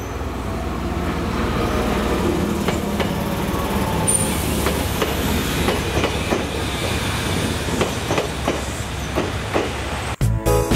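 Jōmō Electric Railway train passing over a level crossing, its wheels clacking over rail joints above a steady rumble, with a brief high squeal about four seconds in. Music cuts in near the end.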